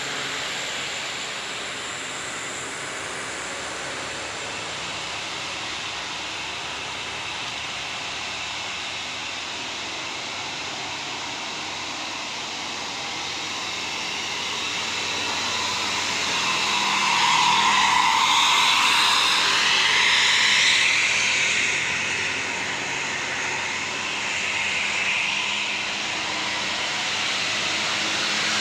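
Heavy vehicle, most likely a bus, working up a steep climb: an even engine and road noise that grows louder from about halfway and is loudest about two-thirds of the way in.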